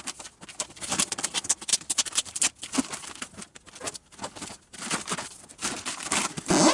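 Scissors cutting the plastic wrap on a rolled, compressed mattress, the thick plastic crinkling and crackling irregularly.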